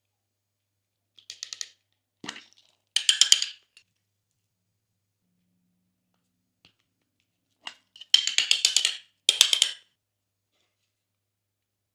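Glossy slime being pressed and squeezed, giving short bursts of rapid clicks and pops from trapped air. There are several bursts, with a pause of about four seconds in the middle.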